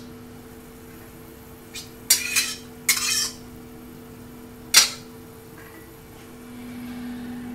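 A few sharp clinks and short scrapes of crockery and a metal pot, the last clink the sharpest, over a steady low hum.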